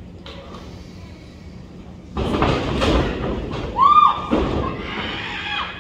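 Wrestlers grappling in a ring: thuds and scuffling on the ring canvas, starting about two seconds in, with a brief high squeal near four seconds.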